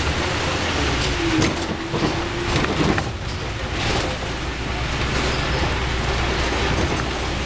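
City bus driving along a street, heard from inside: steady engine and road rumble with a whine that dips and climbs back in pitch in the first few seconds, and a few rattles and knocks.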